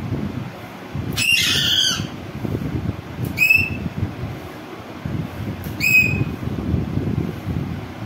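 Green parakeet squawking three times: a longer call about a second in, then two short sharp calls about two and a half seconds apart, over a low background rumble.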